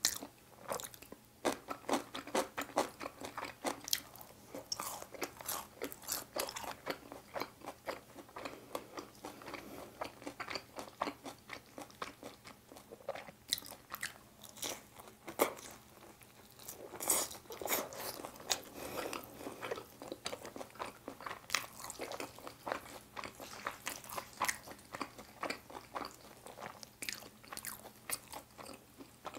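Close-miked eating sounds: crunchy bites and chewing of sauced Korean fried chicken, a dense, irregular crackle of crunches.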